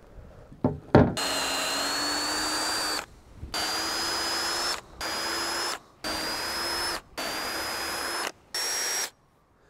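Power drill with a small bit boring pilot holes through a fibreglass sandwich deck, in six short runs of a steady whine that climbs slightly in pitch during each run. A knock sounds just before the first run.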